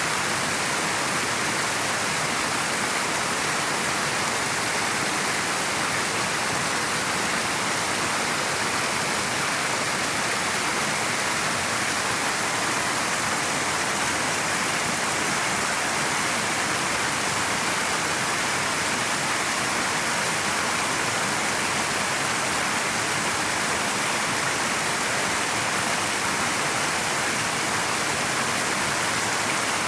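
River water flowing and rushing, a steady even hiss-like noise with no breaks.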